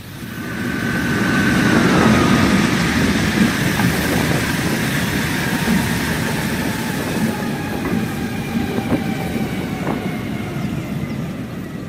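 A train passing with a steady rumble and wheels clattering over the rail joints, swelling over the first couple of seconds and slowly fading. A high tone drops in pitch about two seconds in.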